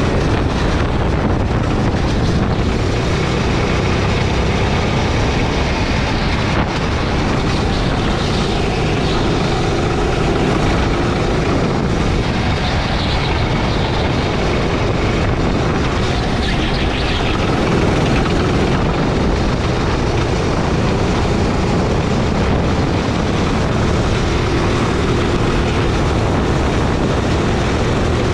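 Gasoline go-kart engine running at speed on the track, its pitch rising and falling a little with throttle through the corners, under a steady loud rush of noise.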